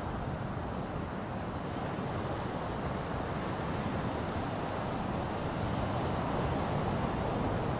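Ocean surf: a steady wash of waves breaking and rushing in, swelling slightly louder near the end.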